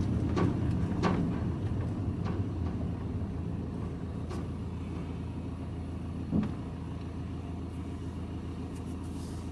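Engine and road noise heard from inside a vehicle's cab while driving: a steady low rumble that eases off slightly over the first few seconds, with a few faint clicks and one short knock about six and a half seconds in.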